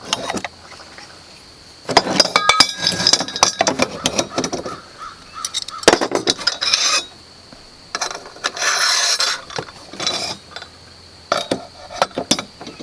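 Small metal hardware clinking and scraping: carriage bolts and flat washers being handled and fitted to the mill's rails, in several short bouts with quiet gaps between.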